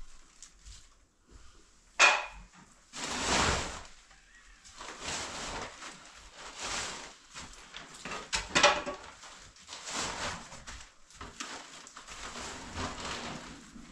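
Rustling and swishing as a large heavy cloth is handled and spread over a pile, with scuffing steps on a rubble-strewn dirt floor. A sharp knock stands out about two seconds in, and another about eight and a half seconds in.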